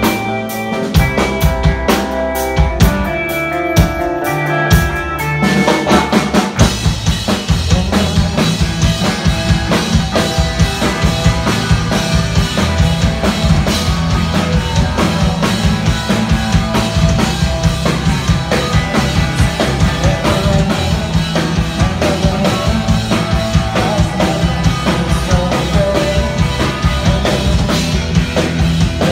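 A live pop-punk band playing drum kit, electric guitars and bass. For the first five seconds or so it is sparser, with separate drum hits and ringing guitar notes. Then the full band comes in and plays at full volume to a steady beat.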